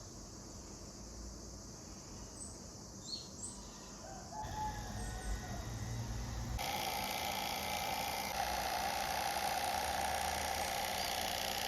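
A rooster crows briefly about four and a half seconds in, over faint outdoor background with small bird chirps. A couple of seconds later a steady rushing noise sets in abruptly and stays, louder than the crow.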